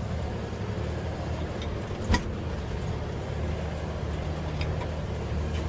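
Large rollback tow truck's engine running steadily while the truck drives. There is one sharp click about two seconds in.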